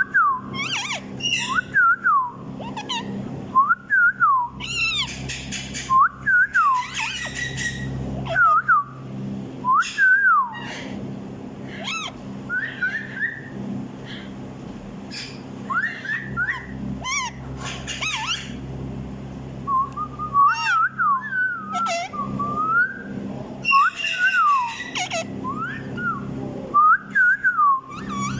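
A parrot whistling short rising-and-falling notes over and over, about one every second or two, mixed with a few harsher chattering calls.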